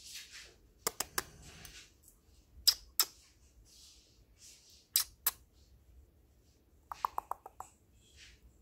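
A person making lip-smacking kissing sounds close to the microphone, mostly in pairs every couple of seconds, then a quick run of kisses near the end, with soft breathy puffs in between.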